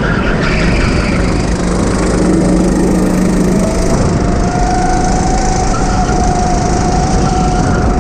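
Go-kart engine running, with a loud, rough, steady noise; its note rises slightly about halfway through and then holds.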